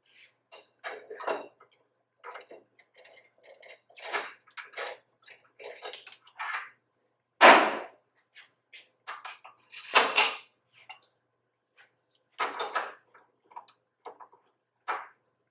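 Irregular metal-on-metal clanks, knocks and clicks as lathe accessories are handled: the safe drive is taken out of the headstock and a four-jaw chuck is mounted on the spindle. The two loudest knocks come about seven and a half and ten seconds in.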